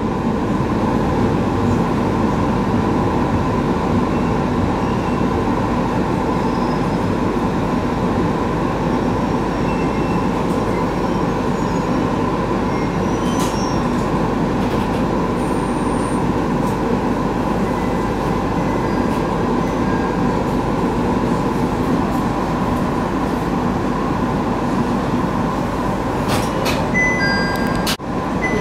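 JR East 701 series electric train running steadily, heard from inside the carriage: an even rumble of wheels on rail with a constant electrical hum. Near the end there are a few sharp clicks and short, high, repeated tones.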